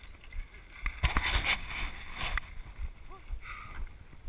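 Low, uneven rumble of wind on the microphone, with faint, indistinct voices and a few small clicks.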